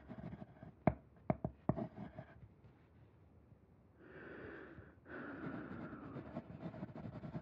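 A few sharp knocks early on, then a quick breath in and a longer, heavier breath out, as of a dancer breathing hard while moving.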